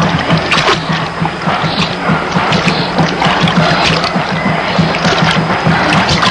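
Rushing river water with irregular splashing, over a steady low hum.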